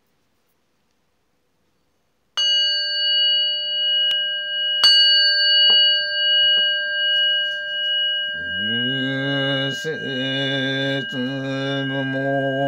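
A Buddhist bowl bell struck twice, about two and a half seconds apart, each stroke ringing on steadily, with the first stroke about two seconds in. About eight seconds in, a low voice begins chanting the sutra in long, steady intoned tones over the fading ring.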